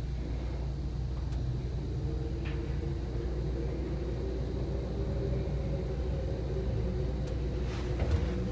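Hitachi traction elevator car travelling up the shaft: a steady low rumble with a faint hum, and a few short clicks near the end.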